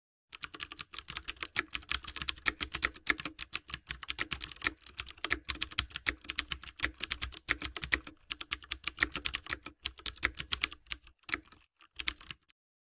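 Computer keyboard typing sound effect: rapid key clicks, with a brief pause about eight seconds in, thinning out and stopping shortly before the end.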